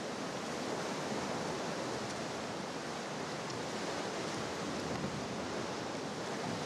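Steady rushing of sea swell and foamy surf washing through a rock sea arch.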